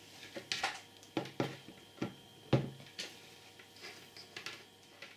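Handling noises from a plastic Apple MagSafe power adapter being turned over in the hands and set down on a wooden table: a string of light, irregular clicks and knocks, with one louder knock about two and a half seconds in.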